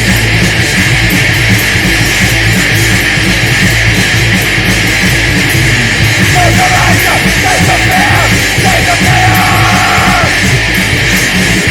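Loud, heavily distorted heavy music: a dense, noisy wall of sound over a heavy low end, with a wavering high line riding on top for a few seconds past the midpoint.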